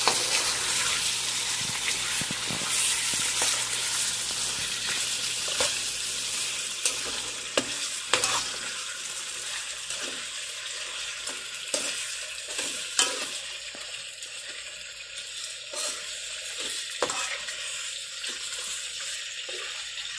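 Mutton (goat meat) pieces sizzling in oil in a non-stick pan over a high flame, their released water frying off. A steel spoon stirs and scrapes through the meat, clicking against the pan now and then. The sizzle eases gradually after the first several seconds.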